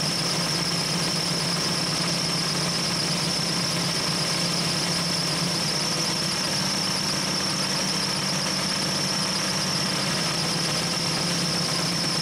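Compressed air from an engine-driven onboard air compressor whistling steadily into a Jeep tyre through a clip-on inflator chuck, with the engine running steadily underneath.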